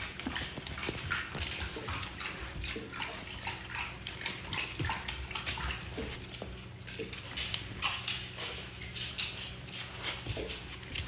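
Puppy scuffling and play-biting: a dense run of short clicks and rustles, with a steady low hum underneath.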